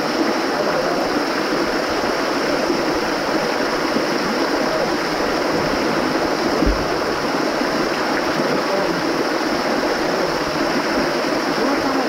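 A thin waterfall pouring onto a pool's surface right in front of the microphone: a steady splashing rush. A brief low thump comes about seven seconds in.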